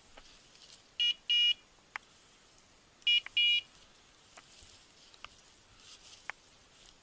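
Hunting dog's beeper collar giving two pairs of short, high electronic beeps about two seconds apart. A few faint sharp clicks sound between them.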